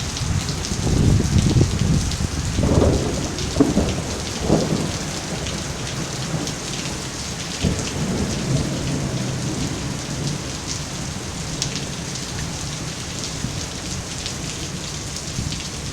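Heavy rain and wind of a severe thunderstorm, with strong low rumbling through the first five seconds that settles into a steady downpour pattering on surfaces.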